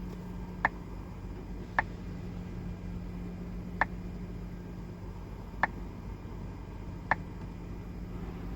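Five sharp, single clicks at uneven intervals from the dashboard of a VW Golf 7.5 with Climatronic, over a steady low hum. The clicks are typical of the defrost air flap noise in this car's climate system.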